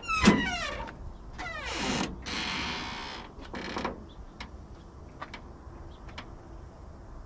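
Old garbage truck's metal cab door creaking on its hinges as it is swung open: a click, then two falling squeals in the first two seconds. A burst of hiss follows for about a second, with a shorter one near four seconds.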